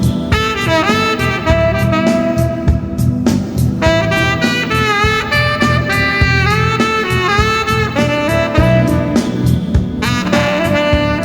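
Cannonball tenor saxophone playing a smooth, bending lead melody over a backing track with bass and drums.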